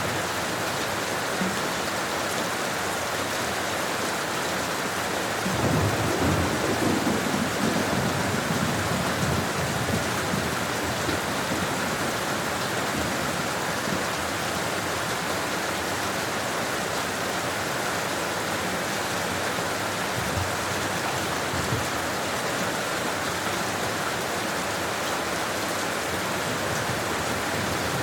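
Steady rain falling, an even hiss. About six seconds in, a low rumble of thunder swells for a few seconds and fades back into the rain.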